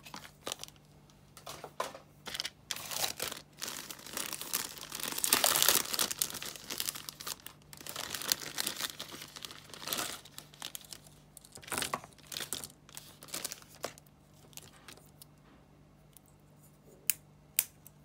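Clear plastic packaging bags crinkling and rustling in fits and starts as hands handle them, loudest around five seconds in and dying away after about fourteen seconds. Two sharp clicks near the end.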